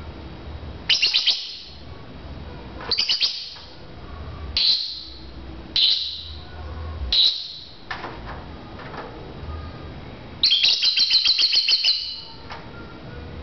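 Lovebird chirping: short bursts of shrill chirps about every one and a half seconds, then a longer, rapid run of chirps lasting a second and a half near the end.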